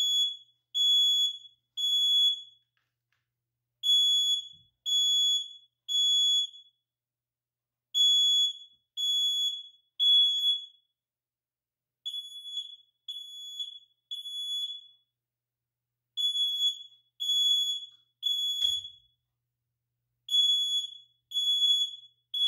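UNItec EIM-217 9-volt battery smoke alarm sounding in alarm, set off by smoke: a loud, high single-tone beep, about one a second in groups of three with a short pause between groups.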